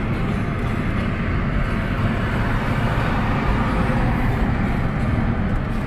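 Steady road and engine noise inside a car's cabin while it is being driven.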